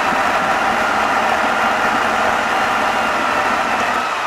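Tatra eight-wheel-drive trial truck's engine running steadily at low revs while the truck crawls over rocks, easing off a little near the end.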